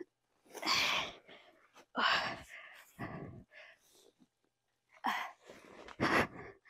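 A woman breathing hard in sharp, noisy puffs and gasps, five of them about a second apart: she is out of breath from the effort of balancing on a stationary dirt bike.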